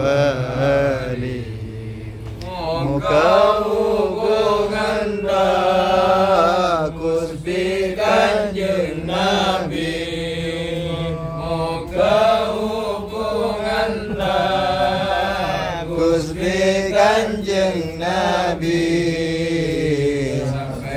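Men's voices chanting an Islamic sholawat prayer together in slow, drawn-out melodic lines.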